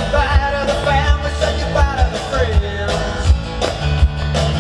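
Rock-and-roll style music with a singing voice over bass and a steady drum beat.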